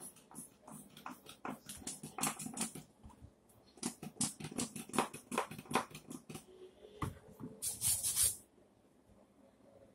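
A brush scrubbing a Nike Huarache sneaker in quick strokes, in two spells. A short hiss comes near the end.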